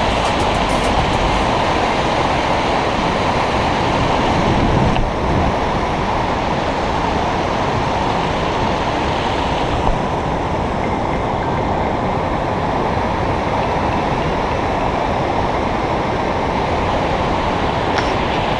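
Glacial meltwater stream rushing loudly and steadily over rocks.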